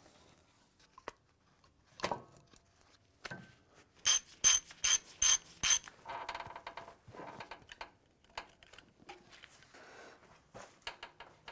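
Ratchet wrench clicking as bolts on a truck's front brake caliper are turned. A few seconds in comes a run of six sharp, ringing metal clicks about a third of a second apart, followed by a quicker, softer run of clicks.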